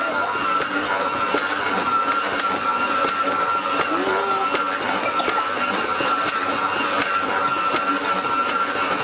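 Stand mixer motor running steadily with a constant high whine, its dough hook kneading a soft yeast dough in a steel bowl.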